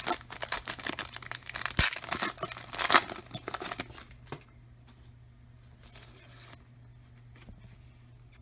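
Plastic trading-card pack wrapper being torn open and crinkled by hand, a dense crackling rustle for about the first three and a half seconds, then quiet with only faint handling.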